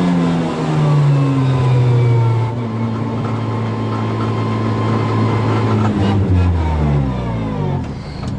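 Honda Civic rally car's engine heard from inside the cabin. Its pitch drops in the first second, holds steady for several seconds, then falls away near the end as the car slows down.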